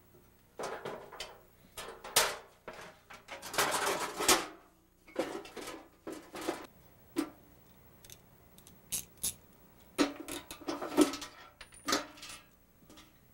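Sheet-metal parts of a Coleman propane camp stove being handled: irregular clanks, rattles and short scrapes as the metal burner tube and the pressed-steel pan are lifted, turned over and set down.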